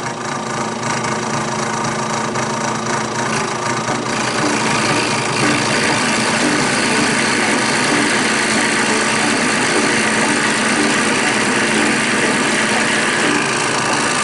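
Drill press spinning a trim-router bit, a steady mechanical running noise with faint steady tones. It grows louder and harsher about four to six seconds in.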